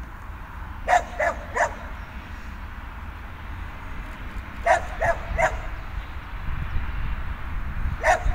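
Young border collie barking at sheep: short, sharp barks in quick runs of three, about a second in, near five seconds and again near the end, over a steady low rumble.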